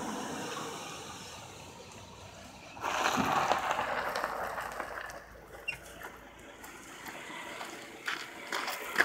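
Mercedes-Benz C280 sedan rolling in close on gravel: a loud crunch of tyres on gravel about three seconds in, lasting a couple of seconds, then quieter with a few sharp clicks near the end.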